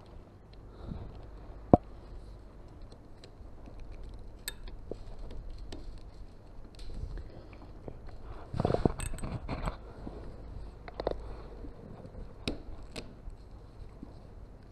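Small metallic clicks and handling noises from hands hooking a motorcycle clutch cable back into its lever, with a sharp click about two seconds in and a louder stretch of fumbling about halfway through.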